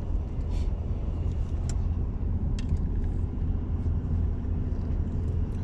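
Steady low rumble of a truck's engine and tyres heard from inside the cab while driving, with a few faint clicks.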